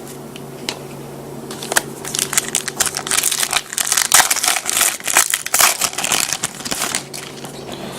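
Trading card pack wrapper crinkling as it is torn open by hand, a dense run of irregular crackles starting about two seconds in.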